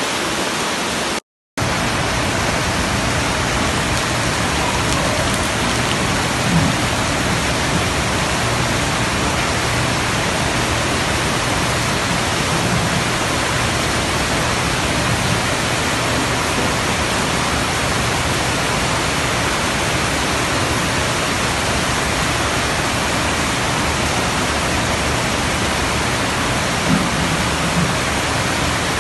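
Steady, loud rush of floodwater running through a street, with rain, broken by a brief dropout a second or so in.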